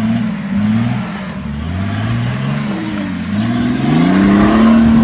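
BMW M57 3.0 straight-six turbodiesel in a Nissan Patrol Y61 revving up and down under load. The pitch dips about three seconds in, then climbs to high, steady revs near the end.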